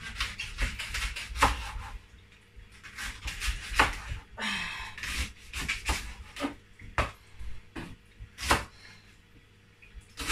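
Kitchen knife chopping a firm vegetable into chunks on a wooden chopping board: irregular sharp knocks of the blade striking the board.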